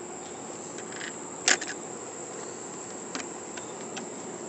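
Steady high-pitched insect buzzing, with one sharp click about a second and a half in and a few fainter clicks near the end as a rusted break-open muzzleloader rifle is worked by hand.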